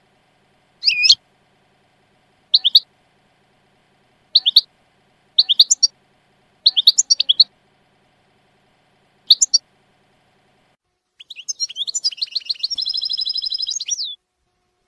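European goldfinch singing in the Levantine ('Shami') song style: short high chirps, singly or in quick clusters of two to four, spaced a second or two apart, then a fast trill of rapidly repeated notes for about three seconds near the end.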